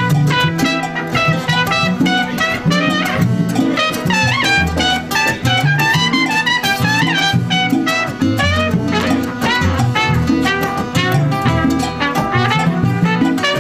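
Live Latin band playing an up-tempo tune, the trumpet carrying the melody over acoustic guitar, upright bass and congas.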